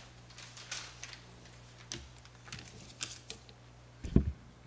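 Scattered light clicks and taps from handling, with a louder thump of a handheld microphone being handled about four seconds in, over a low steady hum from the sound system.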